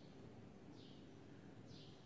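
Faint squeaks of a marker pen writing on a whiteboard: two short high squeaks about a second apart, over a low steady room hum.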